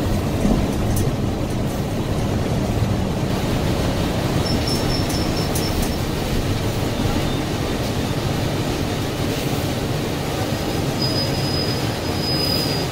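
Cabin ride noise of a 2007 NABI 60-BRT articulated bus with a Cummins Westport ISL G natural-gas engine under way: a steady rumble of engine and road noise. A thin high squeal sounds briefly about four and a half seconds in, and again for the last two seconds.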